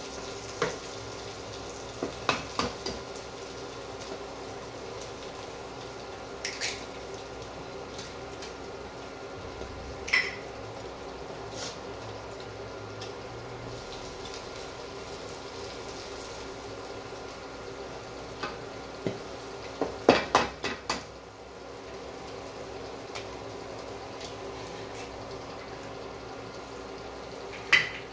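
A wooden spatula knocking and scraping against a non-stick wok at irregular intervals, with a dense cluster of knocks about two-thirds of the way in, over a steady sizzle of frying sardine-and-chilli paste. Near the end a sharp crack as an egg is broken on the wok's rim.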